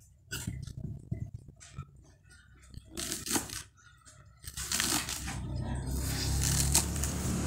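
Kitchen knife chopping green vegetable stalks on a wooden cutting board: a string of quick, uneven taps. From about halfway a steady low rumble and hiss builds up underneath.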